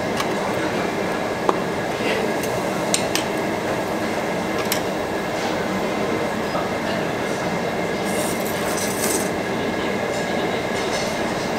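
Steady rushing noise at a tabletop grill with its overhead exhaust hood, with a few sharp clinks of metal tongs on the wire grill grate in the first five seconds and a brief burst of hiss about eight seconds in.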